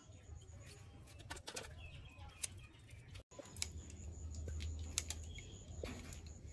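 Scissors snipping through boiled pork intestine: a scattered series of small sharp clicks over a low steady rumble.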